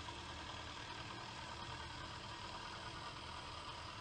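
Drill press running steadily as a dowel-cutting bit bores into a wooden board, cutting out a dowel.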